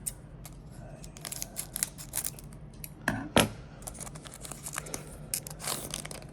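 Wrapper of a Panini Prestige football card pack being torn open and crinkled: a run of crackling rips, with one louder tear about three seconds in.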